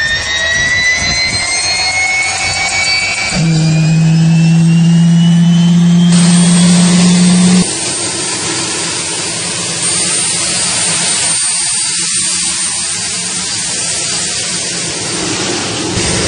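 Boeing helicopter gas turbine in a Batmobile replica spooling up, its high whine rising steadily in pitch, then running with a steady loud hiss. A loud steady low hum sounds from about three and a half seconds in until nearly eight seconds.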